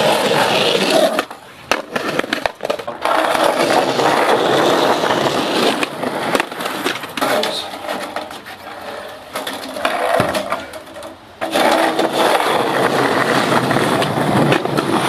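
Skateboard wheels rolling on concrete, a steady rough rumble, broken by sharp clacks of the board popping and landing.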